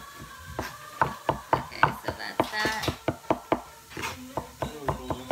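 Chef's knife mincing garlic on a wooden cutting board: a quick, even run of blade knocks on the wood, about four to five a second.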